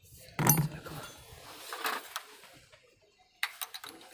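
Tools and engine parts being handled in a workshop: a loud knock about half a second in, a softer one near two seconds, then a quick run of sharp clicks near the end.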